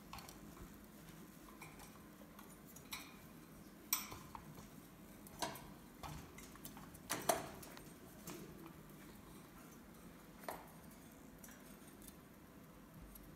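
Light metallic clinks and knocks, about five scattered ones with the sharpest about seven seconds in, as a pet monkey clambers and handles the wire bars and metal bowl of its cage.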